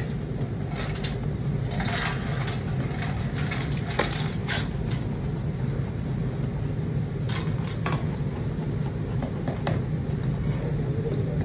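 Wooden paddle scraping and knocking against a metal pan of boiling, frothing sugar syrup: several sharp clicks and scrapes over a steady low rumble.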